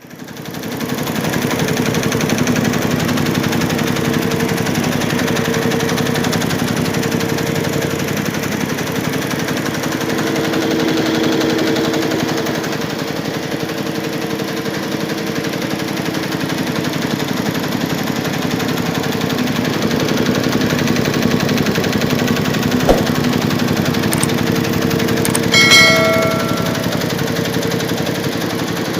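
Computerised embroidery machine stitching, a steady rapid mechanical clatter of needle strokes. A sharp click sounds about three-quarters of the way through, followed shortly by a brief bell-like ringing tone.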